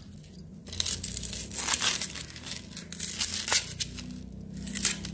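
Knife chopping coriander stems by hand: a run of irregular short cuts, some coming in quick clusters.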